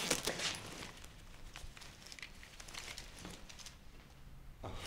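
Faint rustling of clothing and a backpack with scattered light scuffs and clicks, a small cluster of them right at the start.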